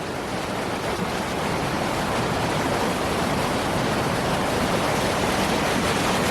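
River Findhorn rushing through a rocky gorge: a steady noise of fast water that grows slightly louder.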